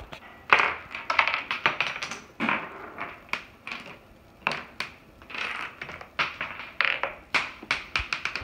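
Toy dominoes toppling one after another in a small Rube Goldberg chain reaction: fast clattering clicks in several runs with short pauses between them.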